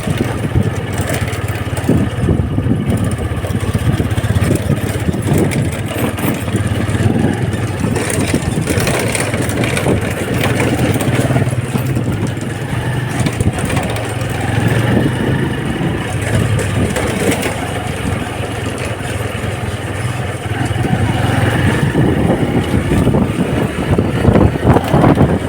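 Small Honda motorcycle engine running steadily while being ridden at low neighbourhood speed, growing louder in the last few seconds.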